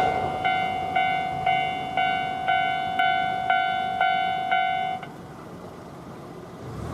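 Japanese railway level-crossing warning bell ringing its 'kan-kan', about two strikes a second. It cuts off about five seconds in, the sign that the train has cleared the crossing.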